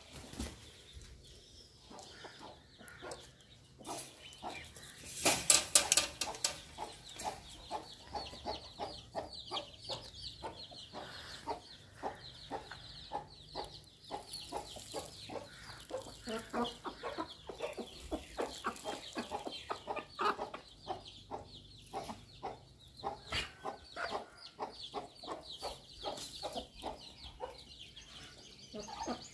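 A flock of backyard chickens clucking in a continuous run of short, quick calls while they feed on scattered grain, with a loud burst about five seconds in.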